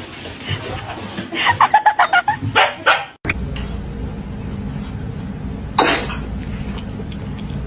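A dog barking in a quick run of short barks about a second and a half in, followed by a steady low hum with one short sharp burst near the end.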